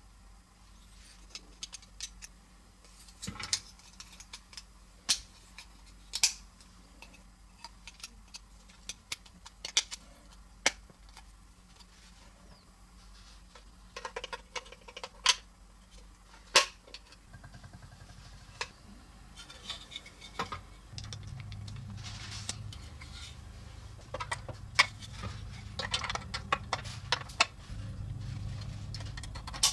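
Hard plastic toy-kit parts being handled and fitted together by hand: scattered sharp clicks and taps of plastic on plastic. A low steady hum comes in about two-thirds of the way through.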